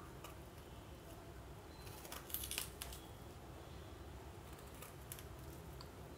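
Kitchen knife cutting through the flesh of a peeled pear held in the hand: faint crisp cutting sounds, with a brief cluster of louder cuts a little over two seconds in and a few single clicks later.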